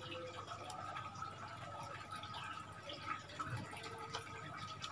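A few faint, light clicks of fingers working a plastic mobile wifi modem's SIM card slot as the card is pressed out, over low room tone with a faint steady whine.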